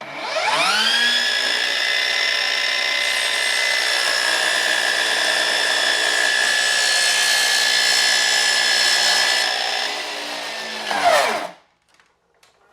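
Ryobi 36V cordless miter saw motor spinning up with a rising whine, then running at a steady whine while the blade is fed slowly through a small piece of wood. Near the end the motor is released and winds down quickly, the whine falling in pitch before it stops.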